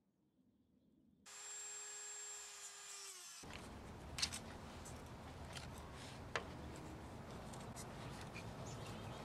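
A small electric motor whines for about two seconds and slows as it stops. Then a screwdriver scrapes and pries at the plastic hub of a computer fan, with a few sharp clicks, to break it open and get at its permanent magnet ring.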